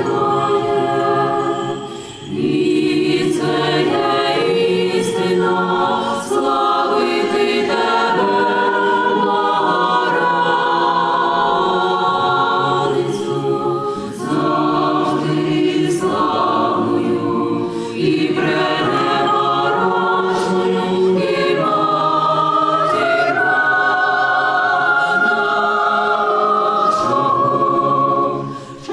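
Church choir singing liturgical music a cappella, several voice parts in long held chords. The phrases break with brief pauses about two seconds in, twice more midway, and near the end.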